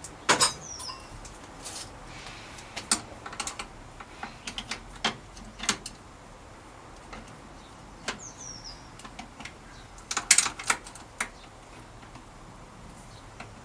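Irregular metallic clicks and clinks as a homemade headset press is assembled from threaded rod, washers, nuts and spanners, ready to press a new bicycle headset cup into the head tube.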